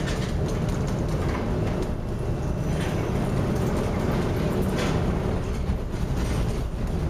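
Steady low rumbling noise of a ship at sea in a storm, with brief hissing surges about three and five seconds in.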